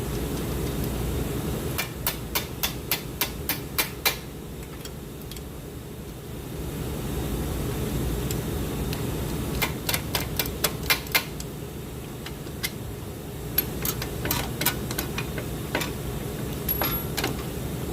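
Hammer striking the strut-to-knuckle bolts to drive them out, with nuts threaded on to protect the threads. Two quick runs of about eight blows each, then slower, scattered blows near the end.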